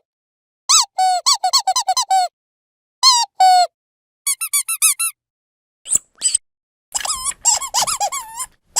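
Dog squeaky toy being squeezed over and over: quick runs of short squeaks, each bending up and down in pitch, with a few seconds' worth of runs broken by short dead-silent gaps. The densest runs come about a second in and again in the last couple of seconds.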